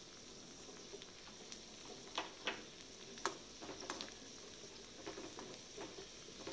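Raisins frying in ghee in a nonstick pan: a faint, steady sizzle as they are stirred with a steel spoon, with a few sharp clicks a couple of seconds in.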